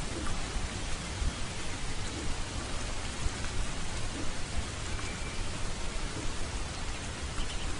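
Steady rain-like hiss: an even wash of noise with small quick flickers in level and no pauses.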